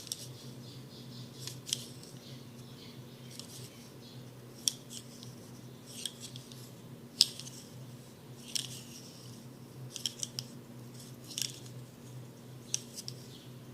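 Irregular sharp clicks and snips from a small hand-held tool worked close to the microphone, a dozen or so spread unevenly, the loudest about seven seconds in, over a faint steady low hum.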